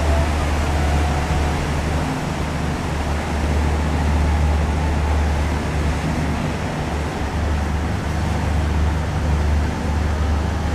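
Steady low rumble with an even rushing noise, the running noise of a ship under way.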